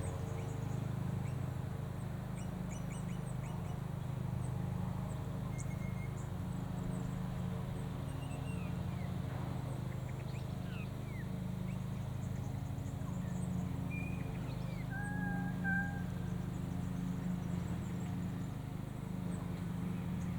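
Petrol lawnmower engines droning steadily, with birds calling over them: scattered high chirps, some sliding whistles, and a couple of held whistled notes near the middle.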